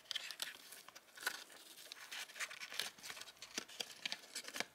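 Faint rustling and many small clicks of fingers handling a cardboard toy backing card, working tiny figures free of their elastic straps.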